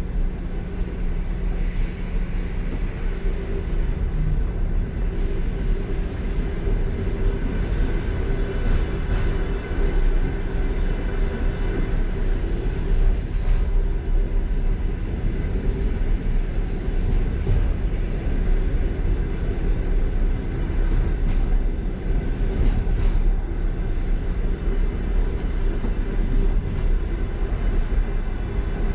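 Passenger train car rolling along the track, heard from inside the last car: a steady low rumble of wheels on rails with a faint hum and a few light clicks.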